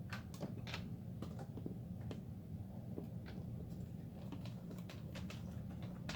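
Light, scattered clicks and taps of small plastic toy pieces being handled and turned, over a steady low hum.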